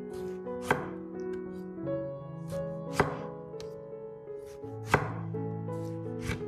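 Kitchen knife slicing a tomato on a wooden cutting board. Each cut ends in a sharp knock of the blade on the board, four times, one and a half to two seconds apart, over soft background music.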